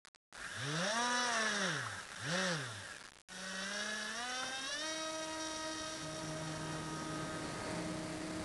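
Electric motor and propeller of an HK Skipper RC flying boat: two quick throttle blips with the whine rising and falling, then after a short break the whine climbs and settles into a steady high pitch as the model runs under power across the water.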